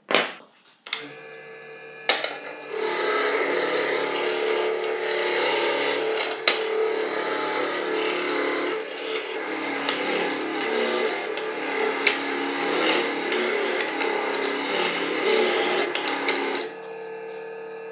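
Bench grinder running with a wire brush wheel: a few knocks in the first second, then the steady motor hum, and from about three seconds in a loud, steady, scratchy rasp as a steel impact wrench anvil is pressed against the spinning wire wheel to scour off rust. Near the end the part comes away and only the motor hum is left.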